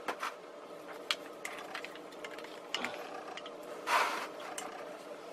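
Handling noise from a small Boya BY-MM1 camera microphone on its mini tripod: scattered sharp clicks and light knocks as it is unplugged from the camera, with a short rustle about four seconds in, over a faint steady hum.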